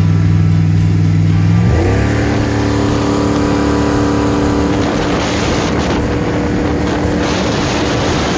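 5.3-litre LS V8 in a 1981 Miller jet boat running steadily at low engine speed, then revving up sharply about two seconds in and holding high revs. A hiss of spray and wind grows under it as the boat runs fast.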